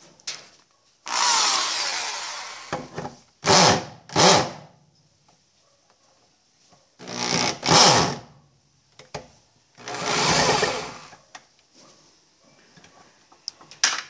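Corded electric drill with a socket bit run in about six short bursts, undoing the tight nuts that hold an Electrolux top-loader's transmission mechanism to the tub base.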